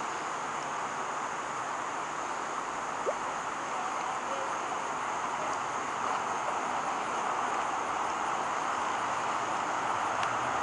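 Steady rush of creek water spilling over a small mill dam, with a steady high insect drone above it and one brief sharp sound about three seconds in.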